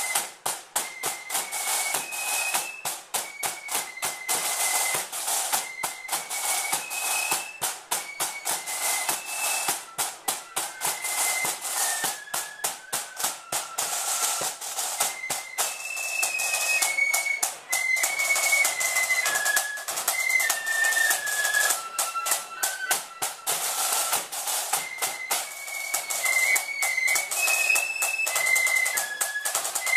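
Marching flute band playing a tune: a high flute melody over rapid snare drum strokes and rolls, a little louder from about halfway through.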